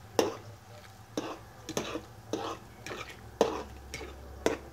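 A utensil stirring ramen noodles in a pot, scraping against the pot in about seven short, sharp strokes at an uneven pace.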